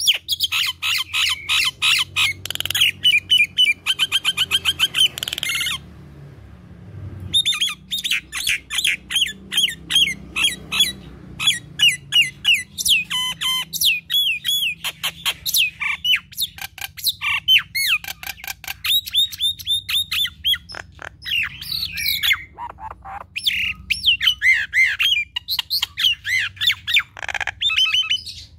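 Common myna singing in full voice, a fast, almost unbroken chatter of sharp clicks, squawks and slurred whistles, with a short pause about six seconds in.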